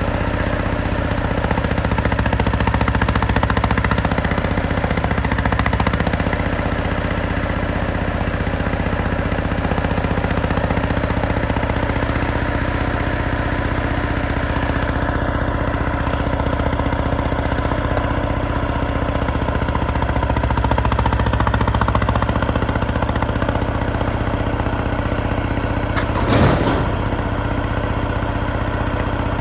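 Detroit Diesel 6V92TA two-stroke V6 diesel of an FTF logging truck running steadily with an even rattle. One short, sharp, louder sound cuts in near the end.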